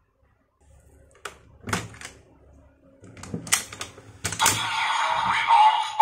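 Plastic clicks and knocks as a DX Desire Driver toy belt is rotated end over end. About four seconds in, its speaker starts playing a loud electronic sound effect for the 'Revolve On' function.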